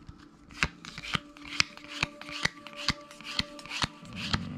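Pokémon trading cards being flipped through by hand one after another, each card giving a short snap or flick about twice a second. A faint steady hum sits underneath.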